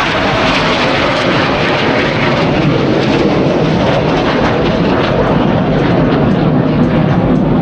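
Jet noise from the Red Arrows' BAE Hawk T1 trainers and their Adour turbofans as they fly past: a loud, steady rushing roar that grows deeper toward the end.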